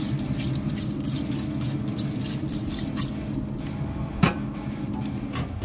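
Trigger spray bottle squirting repeatedly onto a brisket in a pellet grill, a quick run of short hisses over the steady hum of the grill's fan. The spraying stops after about three seconds, then there is a sharp knock and a louder thump near the end.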